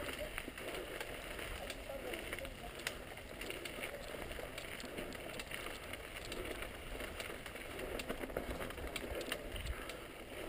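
Mountain bike rolling fast down a dirt and gravel trail: tyres crunching over loose dirt and small stones, with frequent sharp clicks and rattles from the bike and a steady low rumble of wind on the camera.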